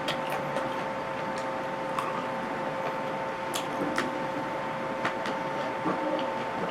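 Person eating close to the microphone: chewing with scattered small sharp clicks and crackles, over a steady two-tone background hum.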